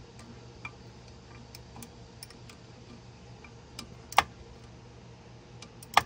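Ratchet clicking in short, irregular runs as it tightens the control-cable clamp bolt, with a sharper metallic click about four seconds in and another at the very end.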